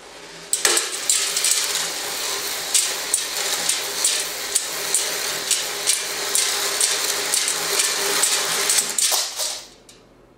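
Long strands of plastic bead necklaces rattling as they slide across a table and pour off the edge onto the floor, pulled down by their own weight. It starts suddenly, keeps up a steady dense clatter of little clicks for about nine seconds, then dies away as the last of the strand falls.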